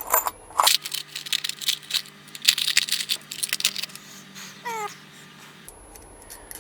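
Small metal parts, a 6 mm bolt and its fittings, being handled and fitted to a steel bracket: a run of short clicks and taps, the sharpest about two and a half seconds in.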